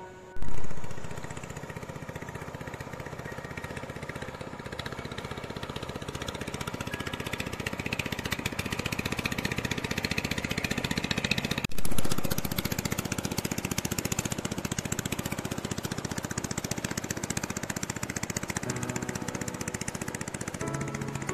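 Small engine of a wooden long-tail river boat running steadily as the boat motors along the river. Two loud, low thumps, one about half a second in and one about halfway through, are the loudest sounds.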